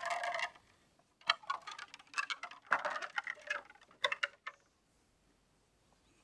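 Bamboo fence rails knocking and clattering against each other and the posts as they are pulled loose and let down. There is a short scraping burst at the start, then a rapid run of knocks and clicks for about three seconds, stopping abruptly.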